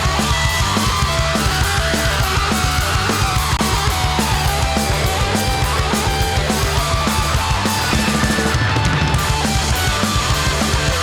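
Live rock band playing a loud instrumental passage: a steady, driving drumbeat under electric guitars and bass, with no singing.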